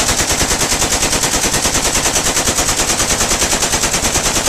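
AK-47 firing in sustained fully automatic bursts from a 100-round magazine: an unbroken string of evenly spaced shots, about ten a second.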